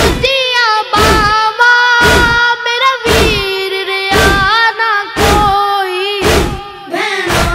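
A boy singing a noha, a Shia lament, in long held notes that bend and waver. A deep thump about once a second keeps the beat under the voice.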